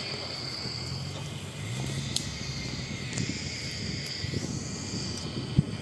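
Off-road vehicle engine idling low and steady, under a constant high-pitched chirr; two sharp clicks, the louder one near the end.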